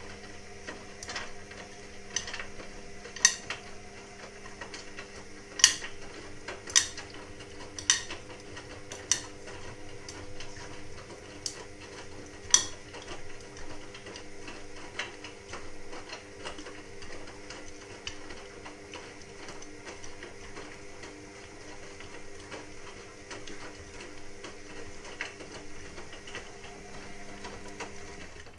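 Indesit WIXL143 washing machine clicking irregularly over a steady hum, the sharpest clicks in the first dozen seconds and fainter ones after. The machine has a fault that stops it finishing its cycle, with the door-lock light flashing.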